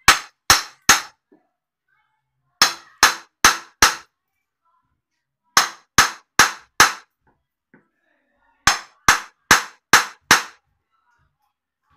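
Hammer blows against wooden ceiling framing overhead, in bursts of four or five sharp strikes at about two and a half a second with short pauses between. It is the sound of knocking out termite-damaged timber.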